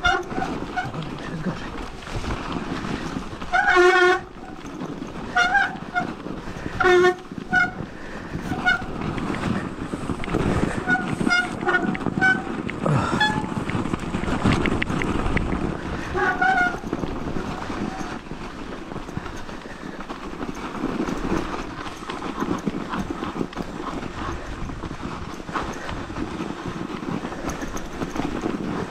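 Mountain bike descending a snowy trail: tyres running through snow with steady wind noise on the helmet-mounted microphone. Short horn-like squeals from the bike's brakes come a dozen times between about four and seventeen seconds in, the loudest near four seconds.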